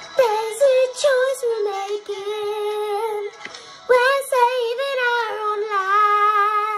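A young girl singing along to a pop song playing in the background, holding long notes with vibrato in two loud phrases, the second starting about four seconds in.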